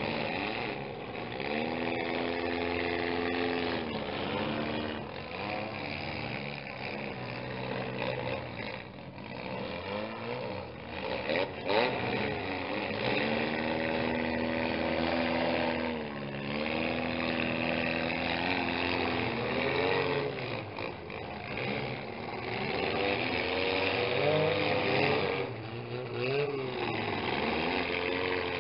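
Engines of small demolition-derby cars revving hard, rising, holding and dropping back again and again as they ram each other. There is one sharp bang about twelve seconds in.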